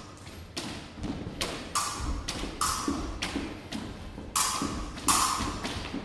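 Épée fencers' footwork on a hardwood gym floor: sneakers stamping in a string of irregular thumps as they advance, retreat and lunge. The thumps grow louder and come closer together in the second half.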